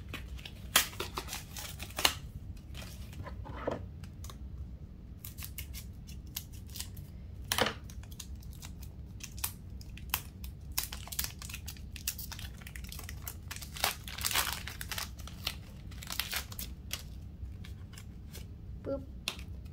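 Foil wrapper of a Pokémon booster pack being torn open and crinkled by hand, in many short, irregular crackling rustles.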